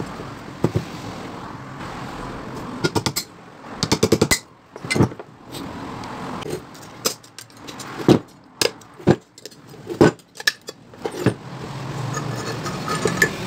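Metal tools knocking and clinking on a fan motor's shaft and bearing during bearing removal: irregular sharp taps with a couple of quick runs of several strikes.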